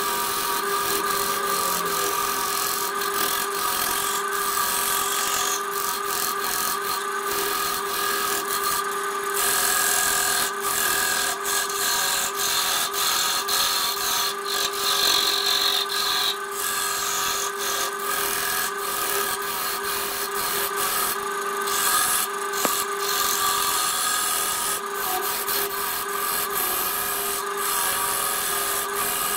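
A turning tool cutting into a large wood blank spinning on a lathe gives a continuous scraping, shaving noise that swells and eases with the cut. Under it runs the lathe motor's steady hum.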